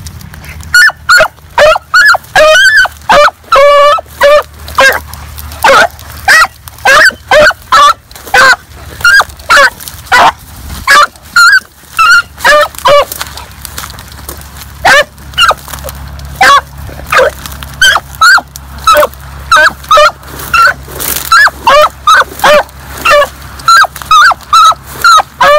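Rabbit-hunting dog giving tongue while running a rabbit: loud, short, pitched barks repeated about two a second, in runs with brief pauses.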